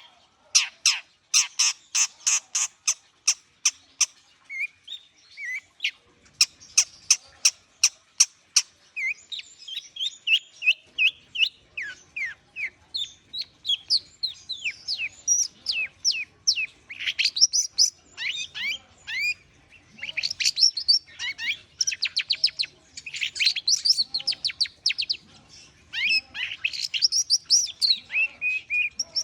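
Long-tailed shrike (cendet) singing a long, varied song: fast runs of sharp, clicking-chattering notes and quick downward-sweeping whistles, in phrases with short gaps between them.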